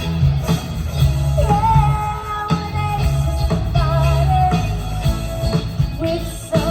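A live rock band playing an '80s/'90s cover: a held, wavering melody line over a steady bass and drum beat.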